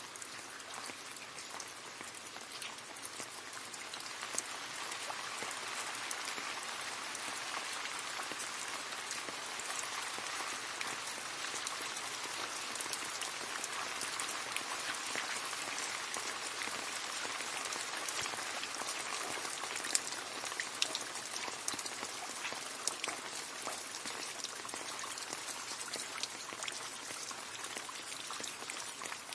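Steady rain falling and splashing into a puddle: a dense patter of many small drops, with an occasional louder single splash.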